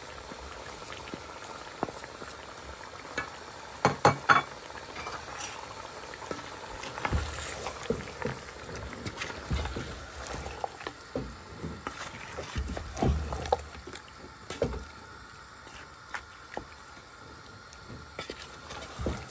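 Chicken, tomatoes and spices sizzling and bubbling in a metal pot as a curry base cooks down, while a wooden spoon stirs and knocks against the pot. There is a quick cluster of sharp knocks about four seconds in, then irregular scraping and thumps of stirring.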